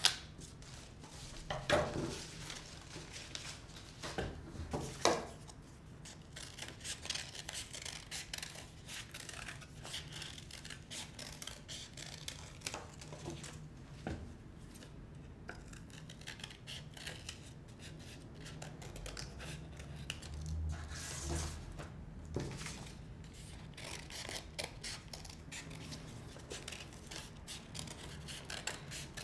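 Hand scissors snipping through folded paper as shapes are cut out, with paper rustling between the cuts. The snips come irregularly, with two louder clicks about two and five seconds in.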